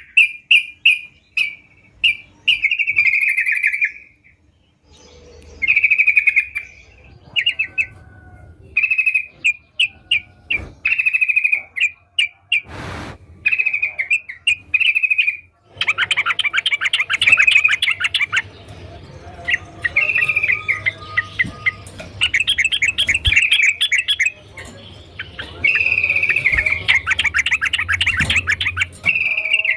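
Yellow-vented bulbul (trucukan) singing: short bubbly phrases of quick chattering notes repeated with brief gaps, running thicker and more continuous in the second half. A short burst of noise cuts in near the middle.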